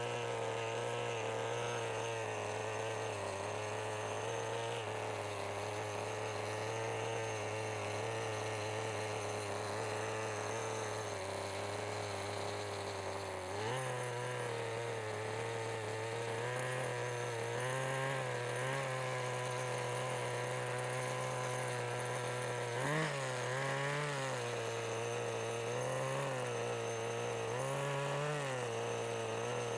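OS Max 10 FP-B two-stroke glow engine of a 1988 Kyosho Ford RS-200 nitro RC car, freshly started and idling steadily. About halfway through the idle steps up a little, and near the end a few short throttle blips make the pitch rise and fall.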